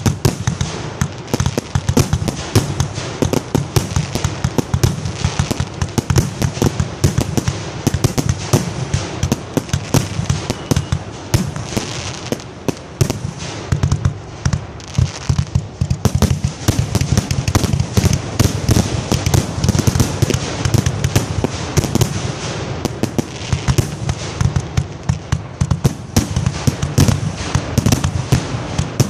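Fireworks finale fired from ground racks of mortar tubes: a continuous rapid barrage of launches and explosions, many bangs a second with no let-up.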